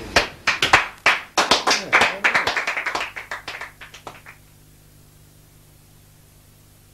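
A small group of people clapping after a song, thinning out and dying away after about four seconds. A faint steady low hum and hiss are left.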